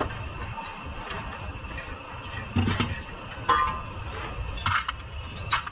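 Metal hand tools clinking and knocking against a car's front strut and suspension parts: about five sharp clinks spread through, the loudest around the middle, over a steady background hum.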